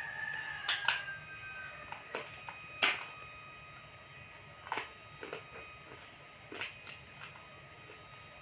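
Roasted multani mitti (Fuller's earth clay) pieces crunching: about eight sharp, irregular cracks, the loudest about a second and three seconds in.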